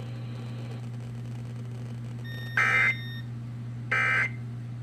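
Two short bursts of EAS digital data tones about a second apart, each about a third of a second long. This is the end-of-message (EOM) code that closes an Emergency Alert System warning. A steady low hum runs underneath.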